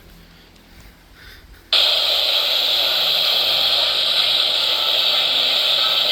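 Radio static: a loud, steady hiss that switches on suddenly about a second and a half in, after a quiet start.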